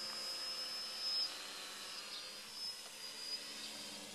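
Witespy VC-450 quadcopter's electric motors and propellers buzzing steadily as it flies low, with a high steady whine that stops about a second in.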